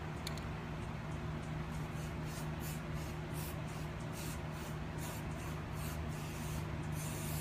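Aerosol spray paint can hissing in short spray bursts, about two or three a second, with a longer burst near the end, over a steady low hum.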